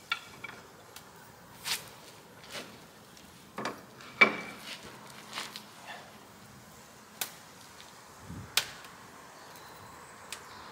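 Steel spanner clinking and knocking against the nut of a traction-engine boiler's hand-hole door as it is nipped up to stop a slight drip. A dozen or so scattered metallic clinks, the loudest about four seconds in with a brief ring.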